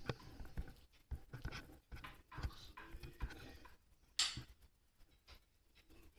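Motorcycle drive chain clinking and knocking in irregular short bursts as it is handled while a link is fitted, with one louder, sharper scraping noise about four seconds in.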